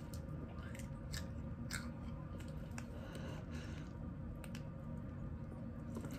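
Biting and sucking at a milk-filled plastic baggie: scattered small crackles and clicks of plastic and mouth noises, over a steady low background.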